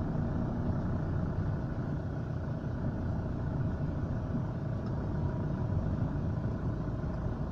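Moving vehicle's engine and road noise heard from inside, a steady low rumble.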